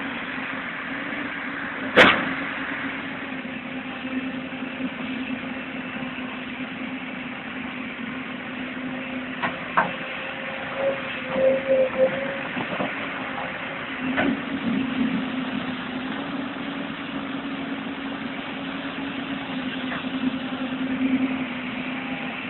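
Excavator diesel engine idling steadily. There is one sharp click about two seconds in, and a few smaller knocks later on.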